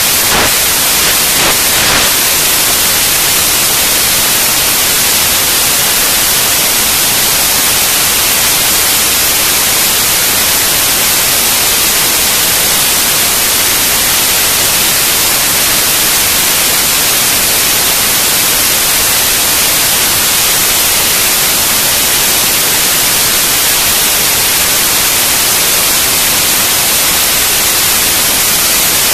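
Loud, steady hiss like static or white noise, with a few faint clicks in the first two seconds.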